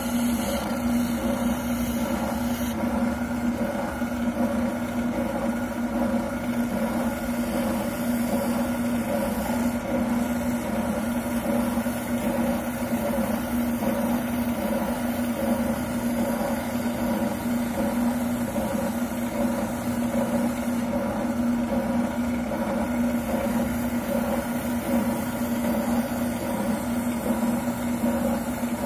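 Wilton oscillating sander running steadily with a constant hum while a shotgun buttplate is sanded down on it.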